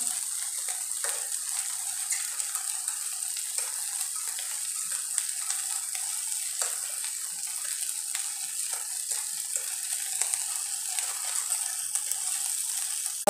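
Thinly sliced beef sizzling in a wok over high heat: a steady frying hiss with scattered small crackles.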